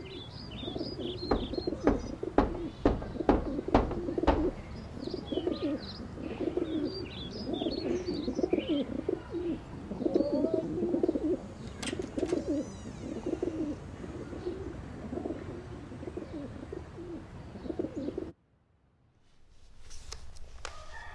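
Pigeons cooing over and over, with small birds chirping high above them for the first half. A quick series of about ten sharp knocks comes in the first few seconds and is the loudest thing heard. The sound cuts out abruptly near the end and starts again just before the close.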